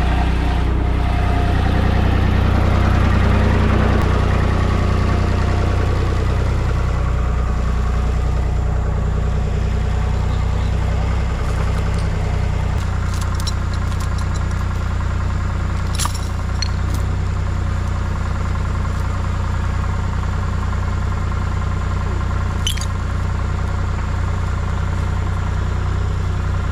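Skid steer engine running steadily at a constant speed, a little louder a couple of seconds in, with a few faint clicks later on.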